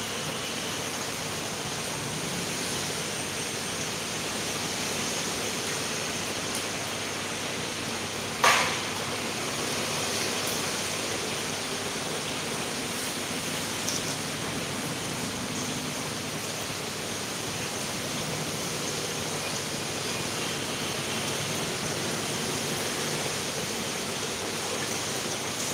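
Steady hiss of background noise, with one sharp knock about eight seconds in and a faint tick a few seconds later.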